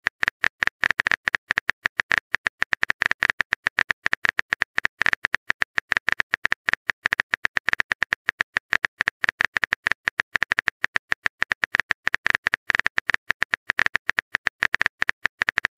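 Keyboard typing sound effect: a rapid, uneven stream of short clicks, several a second, one per key tap as a text message is typed.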